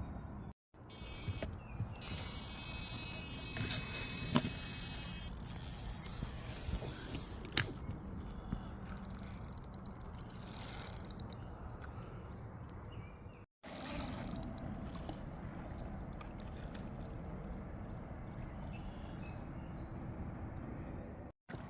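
A fishing reel's clicker ratchet buzzing rapidly for about four seconds as line is pulled off the spool, the sign of a fish taking line on a run; a steady low rumble follows.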